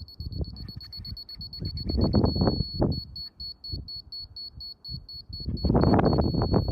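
Laser level receiver beeping a rapid, high-pitched pulse that holds as an unbroken tone for a moment a little over two seconds in; the beep signals when the receiver is at the laser's level. Low rumbling noise comes and goes underneath.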